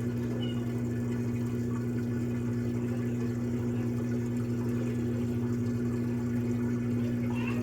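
LG Turbo Drum washing machine's drain pump running with a steady low hum, emptying the last of the wash water before the spin cycle starts.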